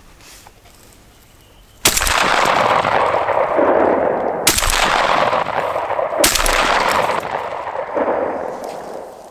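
Three shotgun shots from a Franchi Affinity One semi-automatic, about two and a half and then under two seconds apart, each trailing a long rolling echo that fades out near the end. They are shots at a duck that had just taken off.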